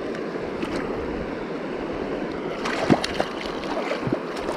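Mountain river water rushing steadily, with a few brief splashes in the second half.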